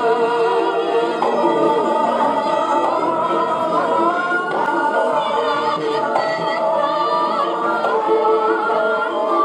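Javanese gamelan music accompanying a Gambyong dance, with voices singing over the ensemble.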